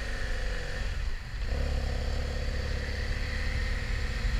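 Motorcycle engine running at low speed through a mini-roundabout, then opening up about a second and a half in as the bike accelerates away down the street.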